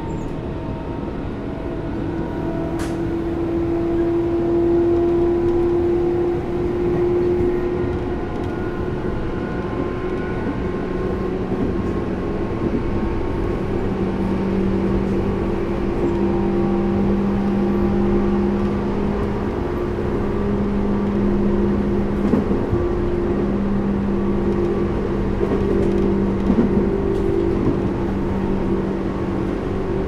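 Tobu 10000-series electric train running at speed, heard inside motor car MoHa 13453. The traction motors and gears give a steady hum over the wheel-and-rail noise, with a few light clicks later on.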